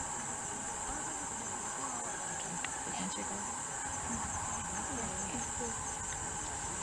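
Steady, high-pitched evening insect chorus, droning on without a break.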